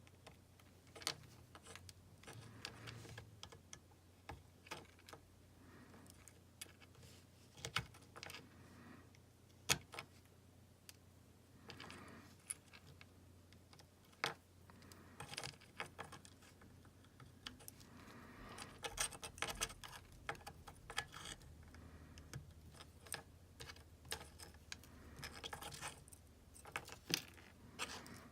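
Scattered small clicks, taps and light rattles, irregular and sparse, of tools and small parts being handled on a workbench, over a faint steady low hum.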